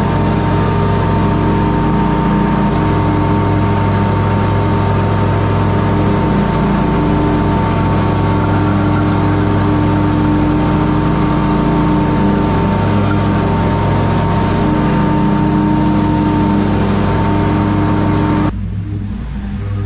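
Commercial lawn mower's engine running steadily while it cuts tall grass, heard close up from the machine, with a steady whine over the engine note. About a second and a half before the end the sound drops suddenly, becoming quieter and duller.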